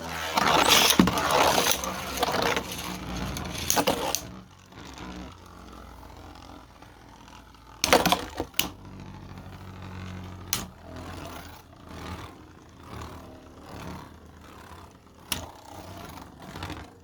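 3D-printed beyblades spinning and clashing in a plastic stadium: loud scraping and rattling for about the first four seconds, then a quieter steady whir broken by a few sharp clacks of hits, about eight, ten and fifteen seconds in.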